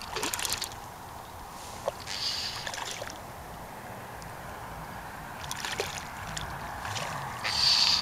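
Fly line swishing in short hissing whooshes every couple of seconds during casting, over soft lapping water.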